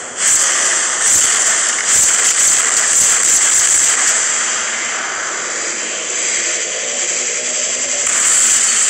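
Jetpack thrusters in an animation sound effect, running with a steady rushing noise, with a few sharp knocks in the first two seconds and getting a little louder near the end.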